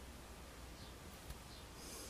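Quiet cabin room tone with a steady faint low hum, and one faint click a little past halfway.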